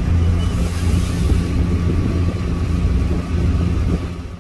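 A car ferry's engines running with a steady low hum, heard from the open bow deck. Wind hisses on the microphone for about a second, starting about half a second in.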